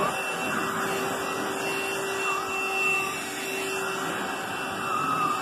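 Bissell Pet Hair Eraser cordless handheld vacuum running steadily as its nozzle is worked over a fabric sofa cushion to pick up cat hair: a constant motor hum and airflow rush.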